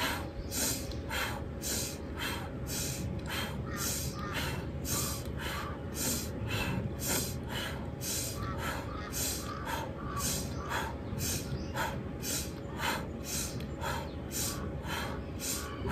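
A woman's rapid, rhythmic Ida–Pingala pranayama breathing: quick sharp breaths in through the nose alternating with forceful breaths out through the mouth, about two breath sounds a second and steady throughout.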